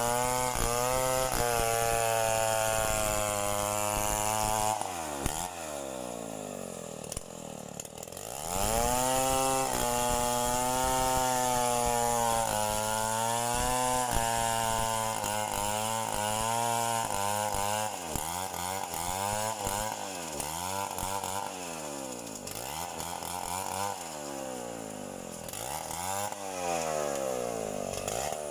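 Chainsaw engine running at high revs, easing off about five seconds in, then back up to full throttle for several seconds. In the second half it is revved up and down over and over, about once every second or two.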